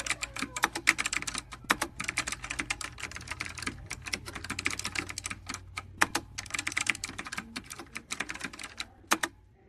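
Typing on a computer keyboard: fast, irregular runs of keystrokes with short pauses, stopping near the end.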